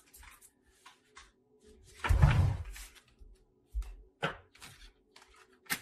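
Tarot cards being handled: a soft thump about two seconds in, then a few light taps and clicks.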